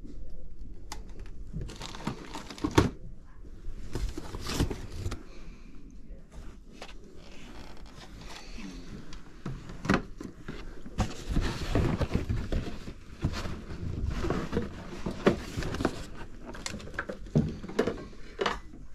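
Objects being handled and moved about: rustling and crinkling with scattered sharp clicks and knocks.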